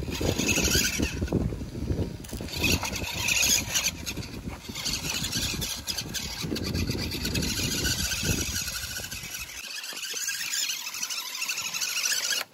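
Scale RC Land Rover Defender D90 crawler driving over dry cracked mud and grass: the small electric drivetrain whines while the tyres rumble and crunch over the ground. The low rumble stops about three-quarters of the way through, leaving only a thin high whine and hiss.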